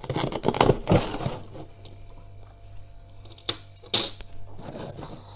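Close-miked crunching of freezer frost: a rapid run of crunches in the first second and a half, two sharp cracks about half a second apart later on, then a little more crunching near the end.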